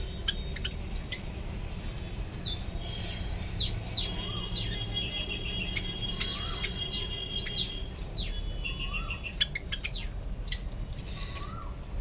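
Small pet birds chirping: a busy run of quick downward-sliding chirps, with a lower rising-then-falling call every few seconds, over a low steady hum.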